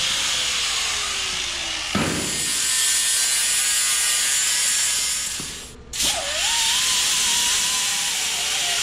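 Angle grinder with a flap disc grinding a weld smooth on a steel frame rail, with a knock about two seconds in. The grinder stops for a moment about six seconds in, spins back up and bogs down again as it is pressed onto the metal.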